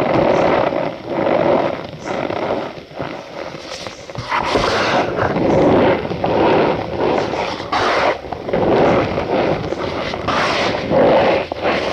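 Packed cornstarch being crushed and squeezed by hand, a run of repeated squeaky crunches that follow one another closely.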